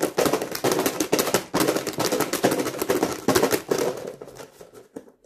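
Folded paper lots rustling and clicking as they are stirred and rummaged in a box for a draw. It is a dense run of crackles that thins out near the end.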